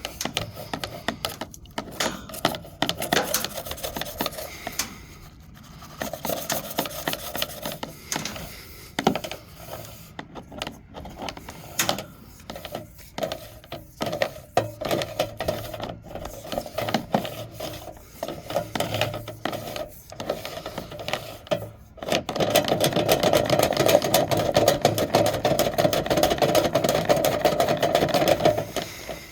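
A cleaning rod scraping and knocking around inside a dryer vent duct. About 22 seconds in, a small motor starts running steadily, then stops near the end.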